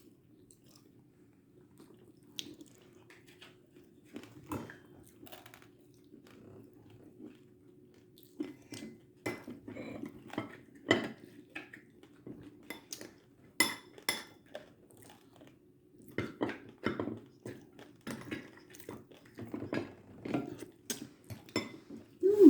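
Cutlery and dishes clinking and knocking in quick irregular clicks, mixed with chewing and crunching of food, over a steady low hum.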